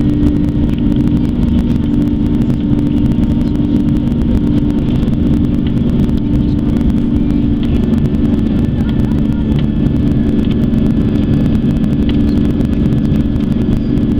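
Steady cabin drone inside an Airbus A340-300: its CFM56 engines and the airflow over the fuselage, heard from a window seat as a constant loud rumble with a strong low hum.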